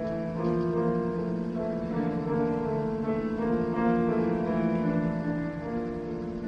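Male choir singing held chords with piano accompaniment.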